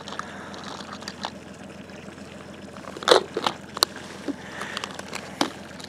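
Fishing tackle being handled in a boat: from about three seconds in, several short, sharp clicks and knocks over a steady background hiss.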